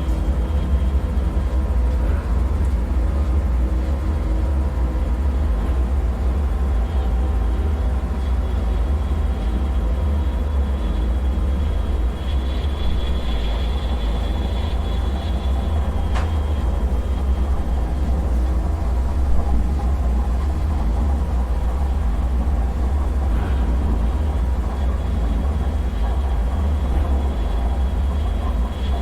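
Dark bunker ambience: a steady deep rumble with faint thin high tones hanging above it, one of them swelling and fading midway, and a single faint click about two thirds of the way through.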